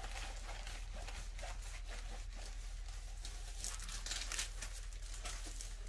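Faint rustling and crinkling of a diamond painting canvas and its plastic film being handled and rolled up, in scattered soft crackles that grow a little busier past the middle, over a steady low electrical hum.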